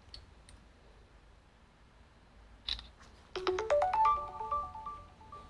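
Electronic ringtone-style chime: a quick run of bell-like notes stepping upward in pitch, each ringing on and fading out. It comes just after a short click or rustle.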